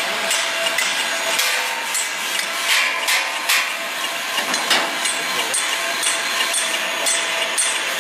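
Snack-food extrusion line running: a steady machine hum under a dense clatter of many small, sharp clicks, thickest about three seconds in.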